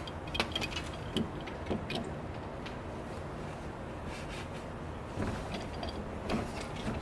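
Scattered small metallic clicks and light taps from a Genie garage door emergency release lock and its metal faceplate being handled and pushed into the hole in the door panel for a test fit. The clicks come in two clusters, one in the first two seconds and another from about five seconds in, over a steady low background hum.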